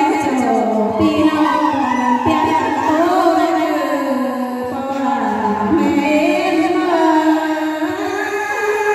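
A woman singing a Thái folk song (hát Thái) through a microphone and sound system, in long held notes that glide slowly up and down.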